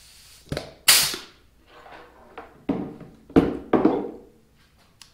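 Pneumatic rivet squeezer setting rivets in an aluminium flange bearing assembly: a handful of short, sharp strokes, the loudest about a second in.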